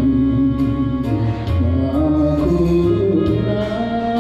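Karaoke backing track of a Japanese popular song: a wavering melody line over a bass line and a steady beat.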